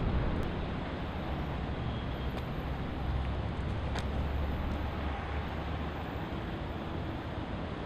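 Outdoor city ambience: a steady hum of distant road traffic with a low rumble that swells in the middle, and a faint click about four seconds in.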